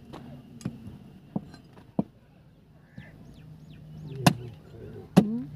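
Butcher's cleaver chopping through a goat's head on a wooden log block: about six sharp, irregularly spaced chops, the two loudest near the end.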